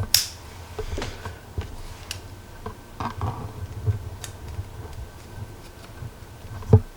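Small plastic figure parts and accessories being handled on a tabletop: scattered clicks, taps and light knocks, with a scratchy rustle at the start and one louder knock near the end.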